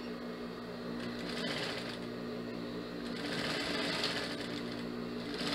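Jontex industrial lockstitch sewing machine stitching a seam in short runs, over a steady motor hum; the stitching grows louder about a second and a half in and again about three seconds in.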